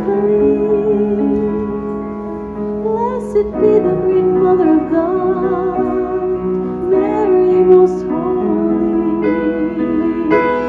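A woman's voice singing long held notes with vibrato over piano accompaniment.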